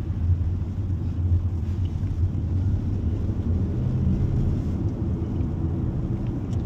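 Steady low rumble of a car heard from inside the cabin: engine and road noise while driving in traffic.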